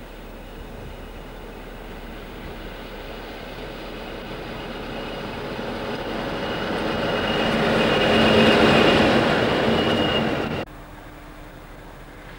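Several coupled Class 20 diesel locomotives, each with an English Electric 8SVT eight-cylinder engine, running towards and past close by. The engine sound grows steadily louder with a steady high whistle on top, peaks about eight seconds in, and cuts off abruptly a little before the end, leaving a quieter steady background.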